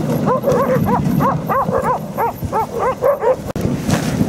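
Sled dogs yipping in a quick run of short high calls, about four a second, that stops a little over three seconds in, over a low steady rush of noise.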